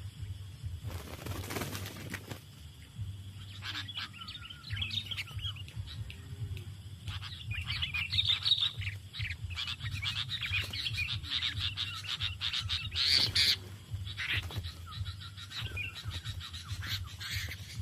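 Sooty-headed bulbuls calling in quick chattering runs of short notes during a fight, busiest in the middle of the stretch. A brief rush of noise comes about a second in.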